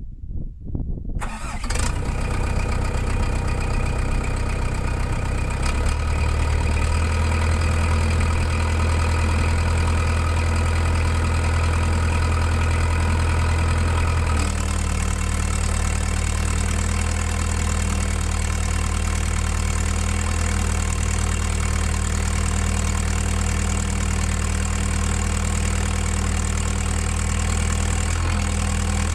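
A heavy-equipment diesel engine starting, catching within the first two seconds, then idling steadily. Its running note changes about six seconds in and again about halfway through.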